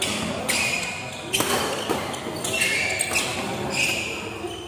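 Badminton rackets smacking the shuttlecock back and forth in a fast doubles rally, a string of sharp hits roughly every half second to second, over crowd chatter.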